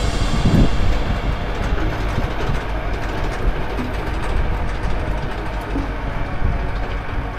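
Tractor engine running steadily under load as it pulls a mounted disc plough through dry soil, with the rumble of the discs turning the clods.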